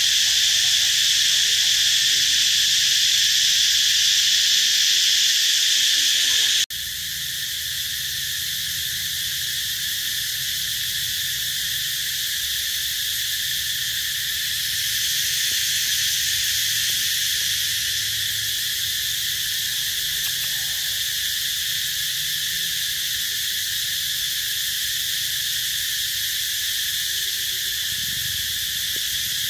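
Steady, high-pitched droning chorus of insects, with a sudden step down in loudness about seven seconds in, after which it runs on.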